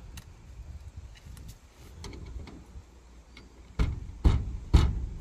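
Faint metal clicks, then three sharp knocks about half a second apart near the end: a pry bar being tapped to coax a part loose from an old car.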